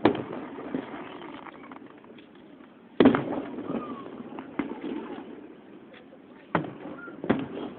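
Aerial fireworks bursting: a series of sharp booms, the loudest about three seconds in and two more near the end, with fainter bangs and crackle between.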